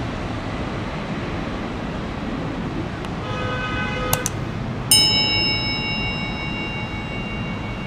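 A metallic, bell-like ding about five seconds in that rings on for about two seconds, preceded about three seconds in by a brief run of steady chime tones, over steady background noise.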